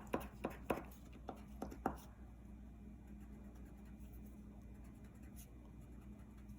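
Crayon scratching on paper in quick short strokes, about eight in the first two seconds, then only faint room hum.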